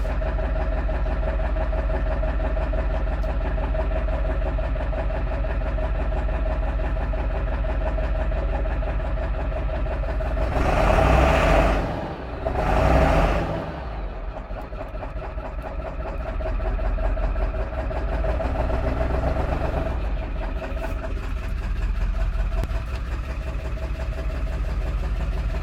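Car engine idling roughly, a rough idle that has only just started. It runs steadily, with two brief louder surges about 11 and 13 seconds in.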